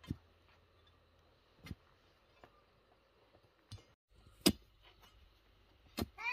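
Scattered sharp knocks and clinks of hard objects being handled, about six spread over several seconds, the loudest one about four and a half seconds in.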